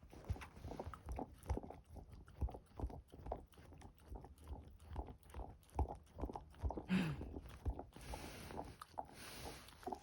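A dog chewing and licking at a treat-filled rubber Kong toy: irregular wet clicks and knocks of teeth and tongue on rubber. A brief falling squeak comes about two-thirds of the way through.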